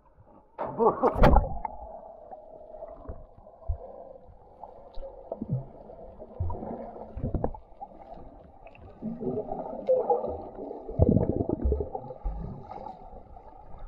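Muffled water sound heard underwater: churning and gurgling with a few dull thumps, after a jump into deep river water.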